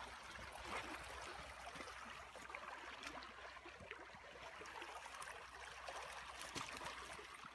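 Faint, steady rush of muddy creek water pouring through the gap in a beaver dam breached by a Tannerite blast.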